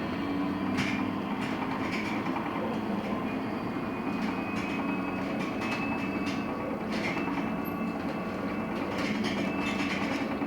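Cabin of a LiAZ-6274 electric bus under way: steady running and road noise with a thin high whine from the electric drive and frequent irregular rattles and clicks from the body.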